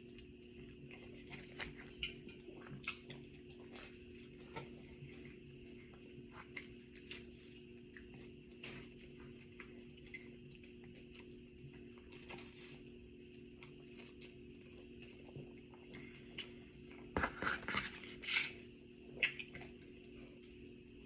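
A person chewing and biting pizza close to the microphone: many small mouth clicks, with a few louder bites near the end, over a steady low hum.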